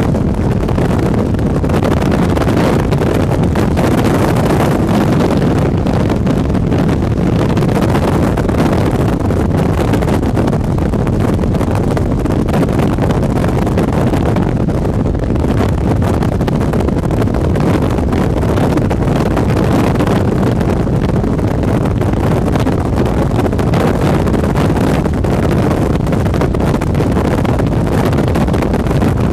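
Strong wind blowing across the camera microphone: a loud, steady, low rushing noise with no let-up.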